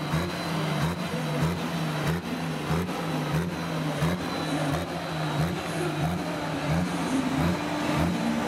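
Modified pulling tractor's engine running at low revs as the tractor drives slowly across the dirt, a steady low drone with a regular lope roughly twice a second.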